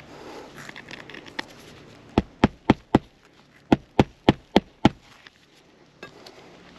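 Hammer driving a roofing nail through a lifted asphalt shingle into the roof deck during a shingle repair test: two quick runs of sharp strikes, four and then five, about four a second.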